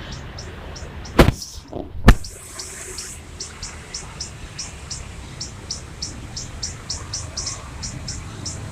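Rapid, evenly repeated high-pitched chirping, about four chirps a second, over a low rumble. Two sharp knocks come about a second and two seconds in, louder than anything else, and the second is followed by a short hiss.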